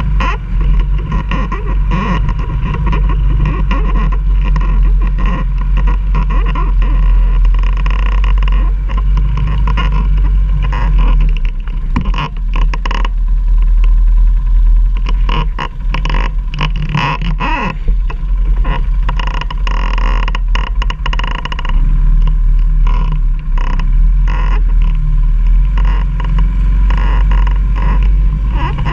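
Quad (ATV) engine running steadily, with many short knocks and rattles throughout.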